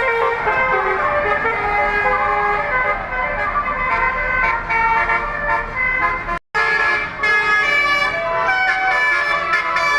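Indonesian tour bus 'telolet' multi-trumpet air horn playing a melody, several tones held together and stepping from note to note. The sound drops out for a moment about six and a half seconds in, then goes on.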